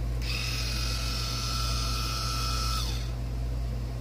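Electric gear motor of a motorized water shutoff valve whining steadily for about two and a half seconds as it closes the water supply, winding down when the valve reaches the closed position.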